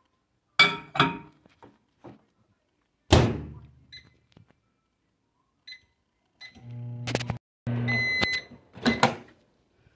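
Microwave oven in use: a glass plate clatters onto the turntable, the door shuts with a thud, then a few light clicks. The oven hums for about two seconds, beeps near the end of its cycle, and the door is knocked open.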